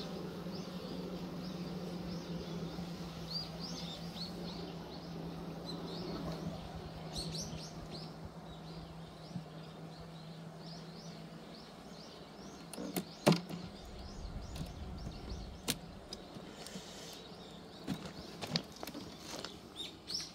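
Honeybees humming steadily over an open hive. The hum drops away about twelve seconds in, and then wooden frames and a metal hive tool knock and click as the frames are handled, with one sharp knock loudest. Small birds chirp in the background early on.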